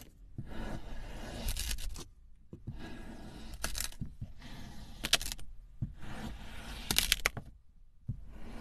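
Knife blade slicing through packed balls of kinetic sand: a grainy crunching scrape with each cut, four cuts in a row split by short pauses, each ending in a crisp crackle as the blade goes through.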